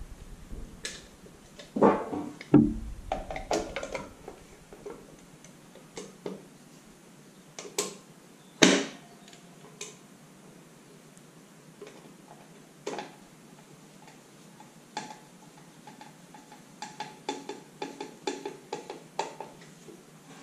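Scattered clicks, taps and knocks of hand work with tools and parts while a two-post car lift's control box is refitted. The loudest knock comes about nine seconds in, and a run of quick small clicks follows near the end.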